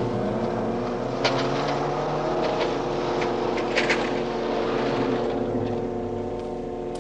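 Engines running with a steady, even drone, with a couple of faint clicks on top.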